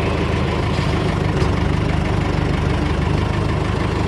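Backhoe's diesel engine idling steadily with an even, fast low pulse, left at idle because its throttle is broken.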